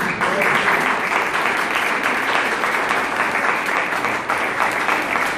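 A group of people applauding, many hands clapping at a steady level.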